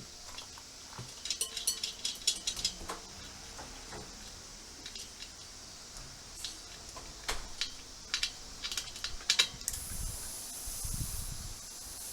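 Light metallic clicks and clinks of hand tools against the wheel while fitting an off-road motorcycle's front tyre, in two bunches, then a short hiss near the end.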